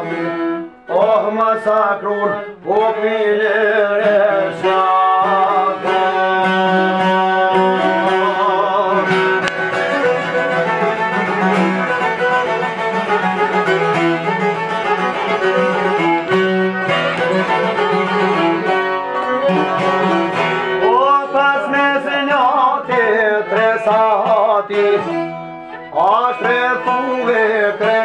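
Albanian folk song played live on plucked long-necked lutes. A man's voice sings over them at the start, then an instrumental passage, and the singing comes back in near the end.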